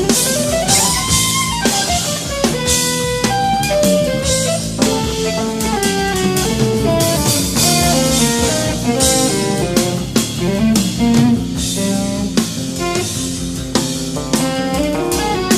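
Live jazz-fusion trio: electric guitar playing a lead line of quickly changing notes, with pitch glides near the start, over electric bass and a drum kit with cymbals.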